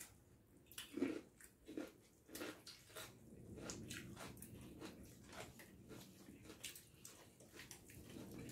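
Faint eating sounds: chewing and mouth smacks, with fingers squishing rice and curry on metal plates, a run of short irregular clicks, the strongest about a second in.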